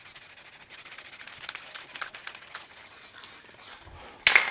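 Aerosol can of white spray paint hissing as paint is sprayed onto a wall, in a few spells with short breaks. A sharp click near the end.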